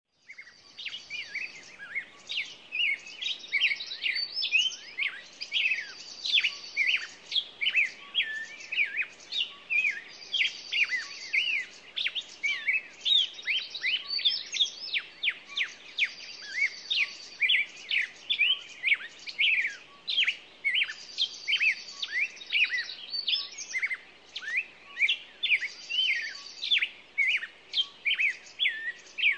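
Small songbirds chirping steadily, many quick sharp chirps close together, with a short buzzy trill returning every few seconds.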